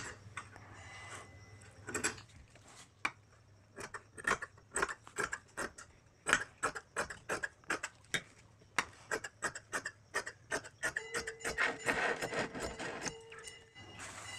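Tailor's scissors snipping along the edge of cloth, a long run of short, sharp clicks, two or three a second, trimming it straight. Near the end a steadier rustling for a couple of seconds.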